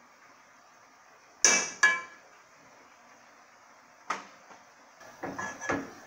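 Metal cookware clanking: two sharp clanks that ring briefly about a second and a half in, one knock at about four seconds, then a few lighter knocks near the end.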